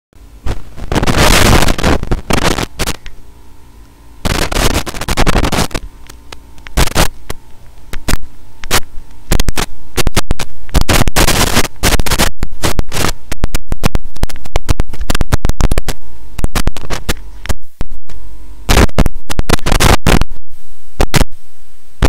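Microphone distortion: loud, crackling, clipped noise that cuts in and out in irregular bursts and stutters.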